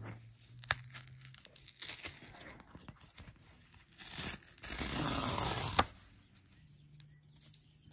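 Subscription-box packaging being torn open by hand: small rustles and clicks, then one long tear lasting nearly two seconds about halfway through.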